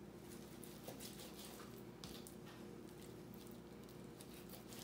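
Kitchen knife cutting salt-cured bacon into cubes: faint, irregular taps and squishes of the blade going through the fat onto a plastic cutting board.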